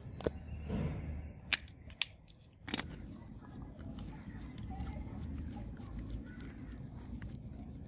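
A few sharp clicks and snips from a self-adjusting wire stripper closing on and stripping a grinder's wire lead, over about the first three seconds. This is followed by quieter scraping and handling as a screwdriver tightens a terminal screw on the switch.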